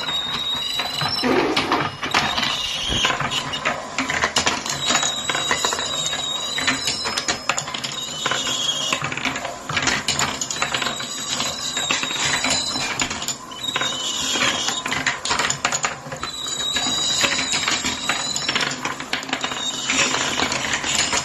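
Many marbles rolling and clattering down a handmade wooden marble run: a dense, continuous rattle of clicks and knocks, with short high ringing tones coming and going.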